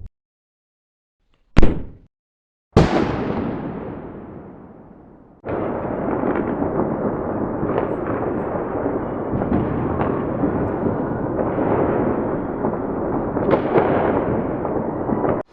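Explosion sound effects: a short, sharp blast, then a larger explosion whose rumble dies away over a couple of seconds, then a long continuous rumbling, crackling blast with scattered sharper pops.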